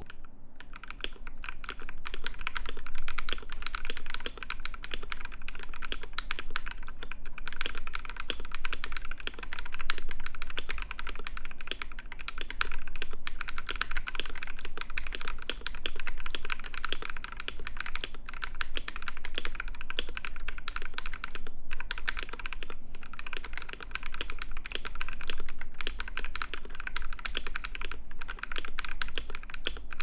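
Continuous fast typing on a KBD67 Lite keyboard with a polycarbonate plate, fitted with Akko CS Matcha Green tactile switches lubed with Krytox 205g0 and PBT keycaps. A dense run of keystrokes with a few brief pauses.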